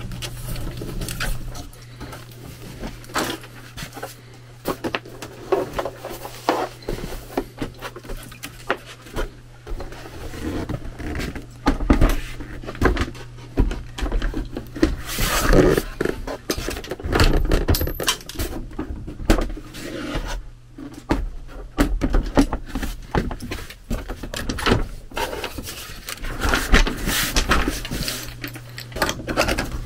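Irregular scrapes, rubs and knocks from hands working wiring and the metal panel of a Trane TAM9 air handler, over a steady low hum from the running system.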